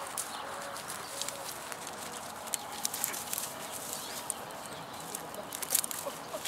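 Open-field ambience: a steady hiss with scattered light clicks and rustles, the sharpest one near the end, and a few faint short calls in the first second or so.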